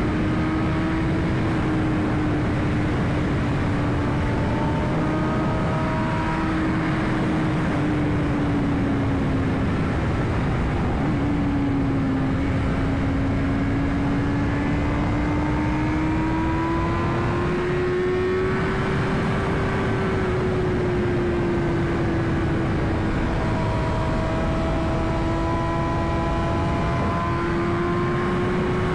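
2021 BMW S1000RR's inline-four engine running at a steady cruise, its note drifting slowly up and down with small throttle changes, under heavy wind rush from riding speed.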